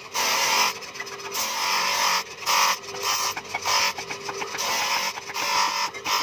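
Bench grinder running, with a steel knife blade pressed to its spinning abrasive wheel in short passes: a harsh grinding rasp that starts and stops every second or so over a steady motor hum.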